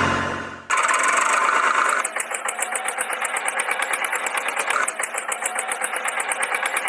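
An engine chugging in a fast, even rhythm of several beats a second, thin and without deep bass. It comes in abruptly under a second in, after an earlier sound fades out.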